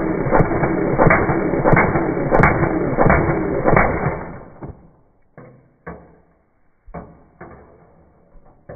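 WELL R4 CQB airsoft rifle firing full auto: a loud continuous rattle with sharper knocks in it, which stops about four and a half seconds in. A few separate knocks follow.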